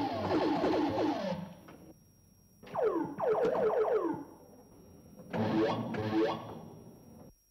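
Electronic film soundtrack: three bursts of synthesizer-like tones, each a cluster of pitches sliding downward together. The third burst pulses.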